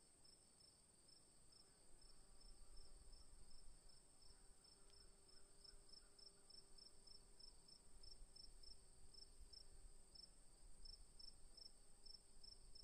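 Faint cricket chirping, about three short high chirps a second, over a steady high-pitched whine.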